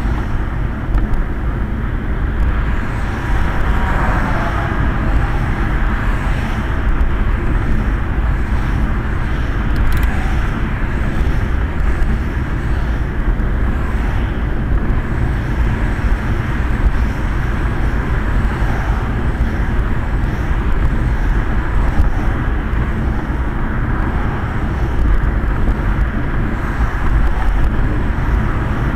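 Steady road noise of a Quest velomobile ridden on a wet road, heard from inside its shell and hood: a low rumble of the tyres carried through the body with a hiss of water and wind, and other traffic mixed in.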